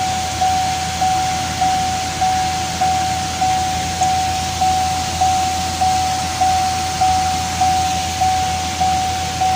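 Chevrolet Camaro's warning chime sounding as a single-pitched electronic chime over and over, a little under two a second, each one fading before the next starts.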